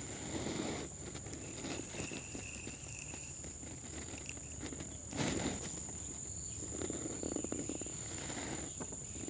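Steady high-pitched buzz of insects, with a few soft handling noises and a short louder noise about five seconds in.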